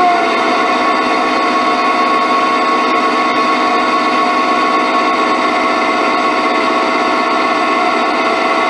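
Motor-driven round belt running over plastic V-groove pulleys and ball-bearing guide rollers on a steel plate, picked up by a piezo contact element: a steady machine whine of several ringing tones over a rumbling bearing noise. The pitch slides down slightly at the very start, then holds steady as the rig runs at constant speed.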